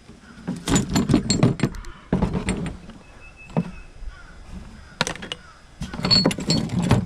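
Small objects clattering and clinking as they are picked up and handled, in several bursts of rattling.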